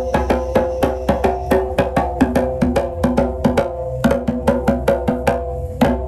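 Music with quick percussion strikes, about six a second, over sustained pitched tones and a low drone.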